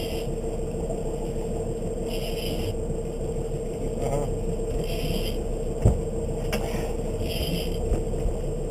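Fishing boat's engine running steadily, heard as a low rumble with a steady hum, with a single sharp knock about six seconds in.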